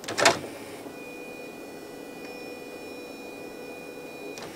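CD player tray-loading motor: a sharp clack, then a steady high-pitched whine lasting about three and a half seconds, cut off with a click near the end.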